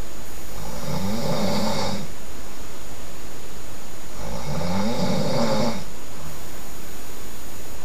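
A sleeping person snoring loudly: two long snores, each lasting nearly two seconds, about four seconds apart.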